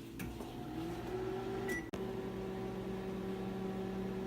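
Microwave oven starting up: a steady hum with a tone rising in pitch for about a second, a short keypad beep and a click a little under two seconds in, then the oven running steadily.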